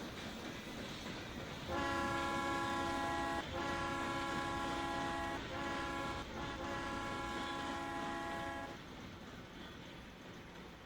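Steam locomotive whistle blown in four blasts, long, long, short, long, each a steady chord of several tones: the grade-crossing signal. A steady rumble lies under it.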